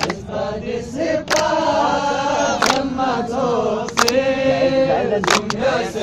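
A group of men singing a Balti ghazal in unison without instruments, with a sharp hand clap about every second and a half keeping a slow beat.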